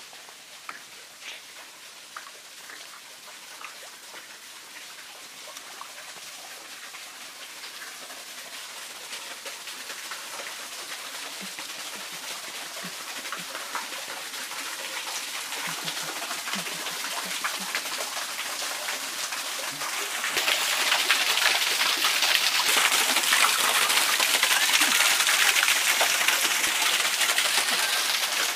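Small forest waterfall splashing into a pool, a steady rain-like hiss that grows steadily louder and jumps up about two thirds of the way through as it is approached.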